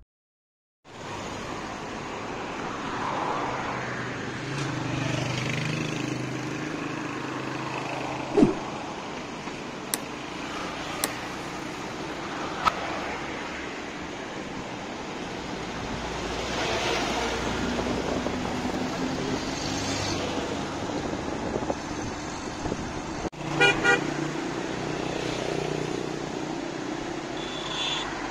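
Road traffic passing, engines running steadily, with a vehicle horn beeping a few quick times near the end.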